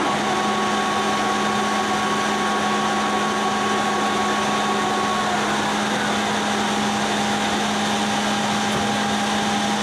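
Poreba TR135 engine lathe running under power: the spindle, chuck and headstock gearing give a steady mechanical hum with whines. A higher whine drops out about halfway, while the hum runs on.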